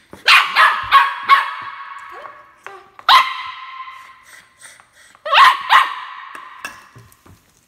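Bichon Frise barking in sharp, high barks: a quick run of four, a single bark about three seconds in, and two more a little past the middle.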